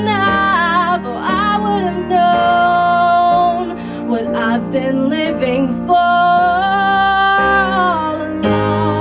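A woman singing into a handheld microphone over instrumental accompaniment, holding long notes with vibrato.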